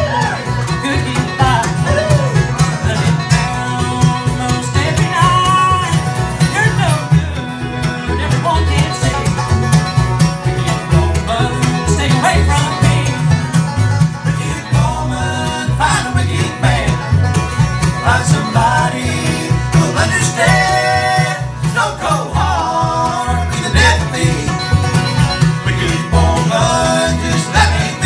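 Live bluegrass band playing: banjo, mandolin, upright bass and acoustic guitars, with voices singing over the picking.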